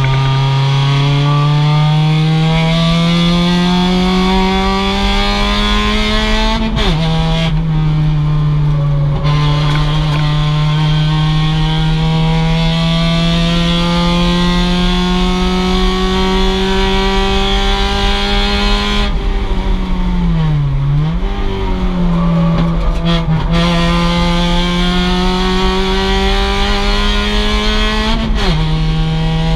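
2006 Mazda MX-5's stock four-cylinder engine running at high revs under load. It climbs slowly through a long pull, drops sharply on an upshift about seven seconds in and again near the end, and dips briefly and recovers around twenty seconds in as the driver lifts and downshifts.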